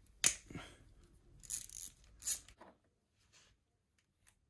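Hand-tool and parts handling on the engine's water-pump bolts: a sharp click about a quarter second in, then a couple of short scraping, rustling sounds around two seconds in.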